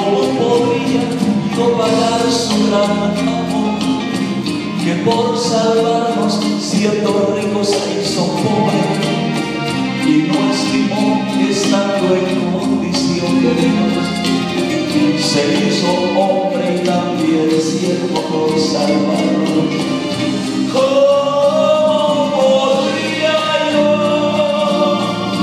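A man singing a Christian song into a handheld microphone, amplified, over instrumental accompaniment with a steady beat.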